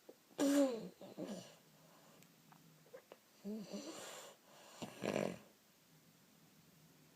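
A pet coughing in three fits: a hacking fit with a falling tone about half a second in, a second around three and a half seconds, and a harsher, noisier one near five seconds.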